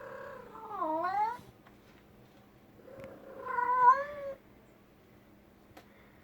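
Domestic cat meowing twice, two long drawn-out calls a couple of seconds apart. The first dips in pitch and then rises; the second is louder and steadier.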